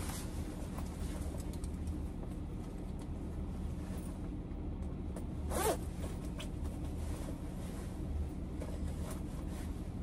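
A coat zipper zipped in one quick pull about halfway through, with light rustling of the jacket's fabric, over a steady low hum.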